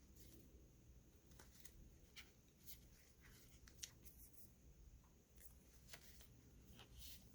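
Near silence, with faint, scattered light rustles and ticks of paper craft pieces being handled and sorted.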